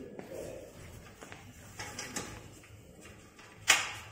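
Soft rustles and handling noises from plastic wrap and cardboard packaging being opened, then a single loud, sharp noise near the end.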